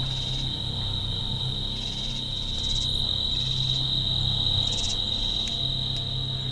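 Night insect chorus: crickets trilling in one steady, unbroken high tone, with another insect calling in short higher bursts now and then. A low hum swells and fades underneath.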